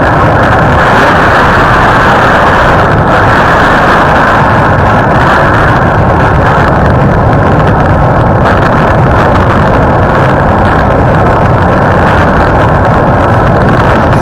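Tornado wind heard through a doorbell camera's microphone: a loud, steady, dense rush that overloads the small microphone and sounds dull, with little treble.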